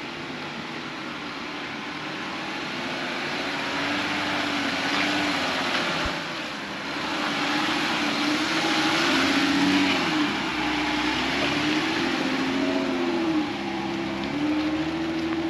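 Jeep engine revving up and down with the throttle as it crawls along an off-road trail, over a steady rushing noise. The pitch rises and falls every few seconds.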